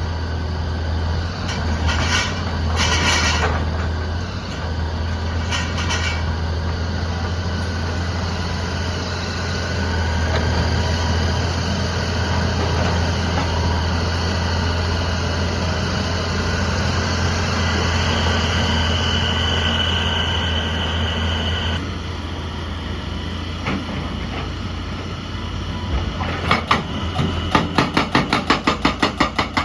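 Diesel engine of a heavy excavator running with a steady low drone and a few clanks, and a high whine for a few seconds past the middle. Near the end a fast, regular metallic hammering starts, about four or five strikes a second.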